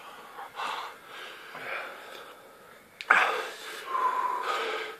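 Men breathing hard through open mouths from the burn of superhot chilli pods: noisy, wheezy panting, with a sudden loud breath about three seconds in and a brief high-pitched note about a second later.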